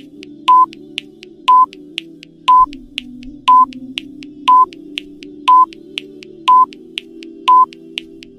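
Countdown timer sound effect: a short high beep once a second, with a fainter tick halfway between beeps, over soft sustained background music.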